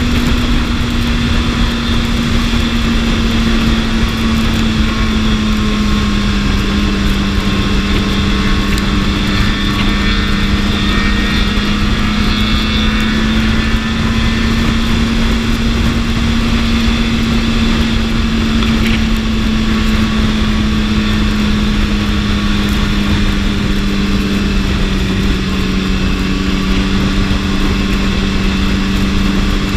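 BMW S1000RR's inline-four engine running at a steady cruising speed, its pitch dropping slightly about six seconds in and then holding, under a constant rush of wind.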